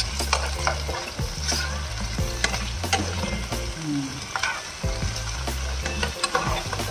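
Asparagus sizzling in oil in a non-stick frying pan while metal tongs stir and turn the spears, with repeated clicks and scrapes of the tongs against the pan.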